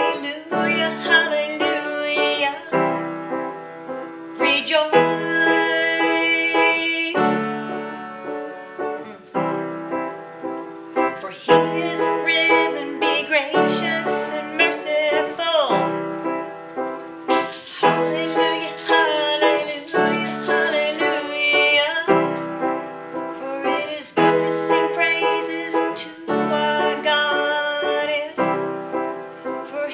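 Upright piano playing a slow song of repeated sustained chords, with a woman singing along.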